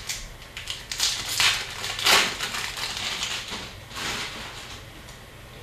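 Upper Deck Series 2 hockey trading cards being handled and slid across one another: a string of short, dry swishes and rustles, several in the first few seconds, fading out near the end.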